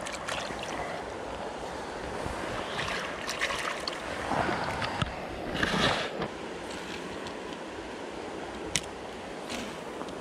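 Running water of a trout stream, rising to a louder rush of water about four to six seconds in, with a few sharp clicks near the end.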